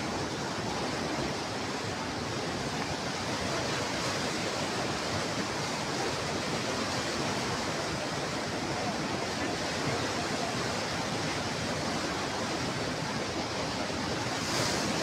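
Floodwater rushing, a steady, even rushing noise with no change.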